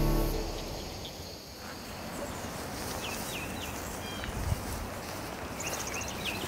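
Music fades out, leaving an outdoor background of songbirds: scattered short chirps and a brief high trill. There is a soft low thump about four and a half seconds in.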